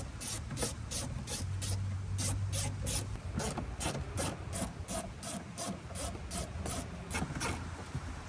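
Quarter-inch ratchet with a T20 Torx socket clicking rapidly, about four or five clicks a second, as it backs out a door-panel screw.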